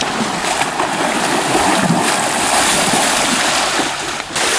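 Choppy water washing and lapping against the shore, with wind on the microphone; near the end, splashing as someone wades through the shallows.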